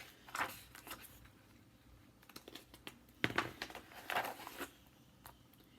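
Soft rustling and handling noises in a few short bunches, with light clicks, the busiest stretch about three to four and a half seconds in.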